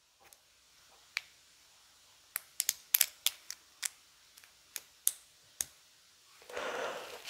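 LEGO plastic pieces clicking as bricks are handled and pressed together: about a dozen sharp, separate clicks spread over a few seconds.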